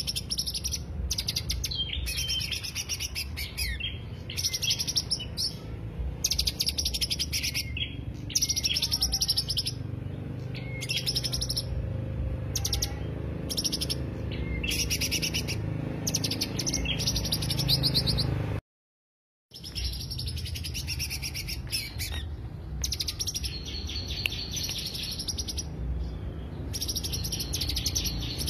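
Green leafbird (cucak hijau) singing: bursts of rapid, high chattering notes, one after another with short gaps, over a low background rumble. The sound cuts out completely for under a second about two-thirds of the way through.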